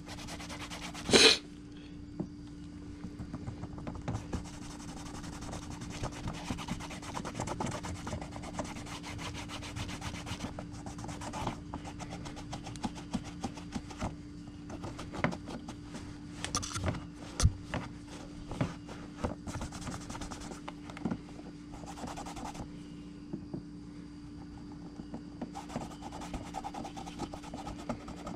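Cloth or applicator rubbing paint into a leather knife sheath, a continuous rubbing dotted with small clicks and taps. A sharper knock about a second in is the loudest sound.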